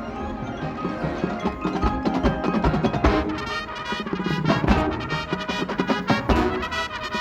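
High school marching band playing, with drums and mallet percussion (marimba, glockenspiel and bells) striking busily over sustained wind chords.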